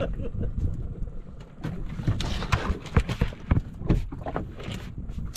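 Irregular hollow knocks and thumps on a boat, several a second from about two seconds in, over a steady low rumble.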